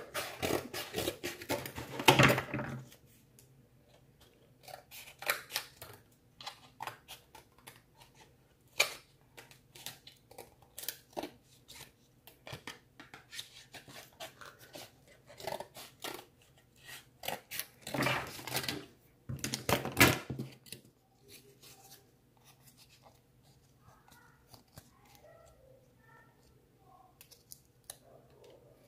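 Scissors cutting cardboard in short snips: a quick run of cuts at the start, scattered single snips, then another run about two-thirds of the way in.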